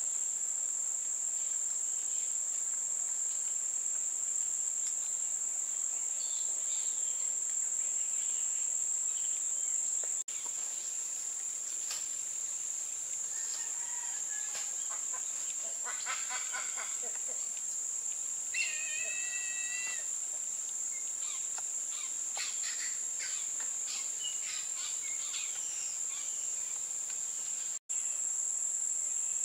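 Steady high-pitched insect chorus, with scattered short bird calls in the middle stretch.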